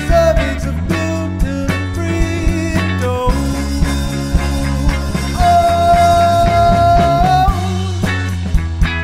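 A rock band's recorded song in an instrumental stretch, with bass, drums and a steady beat. Midway a lead line holds one long note for about two seconds, then bends away.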